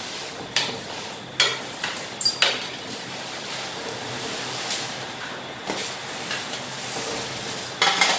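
Boondi being tipped from a steel tray into a kadai of boiling sugar syrup: a steady hiss of the hot syrup, with scattered scrapes and clinks of the metal tray and slotted spoon against the pan and a quick run of clatter near the end.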